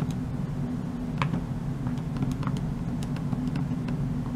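Buttons of a Texas Instruments BA II Plus calculator being pressed: a scattering of short clicks at an uneven pace, over a steady low hum.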